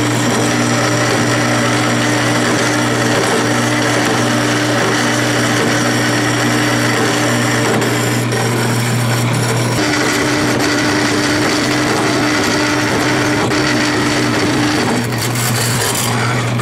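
Vertical metal-cutting band saw running and cutting a slit in 3/16-inch steel plate: a steady motor hum with the hiss of the blade in the metal.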